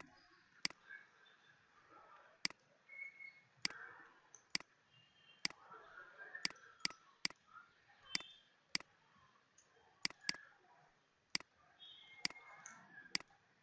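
Faint computer mouse clicks: single sharp clicks at irregular intervals, about a dozen and a half in all, now and then two close together.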